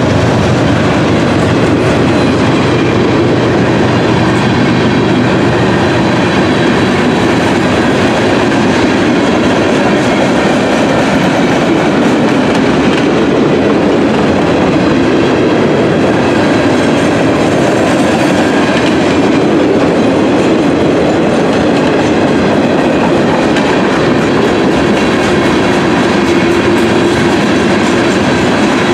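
Freight train cars (boxcars, gondolas and covered hoppers) rolling past close by at a steady speed. Their steel wheels make a loud, even rumble and clatter on the rails.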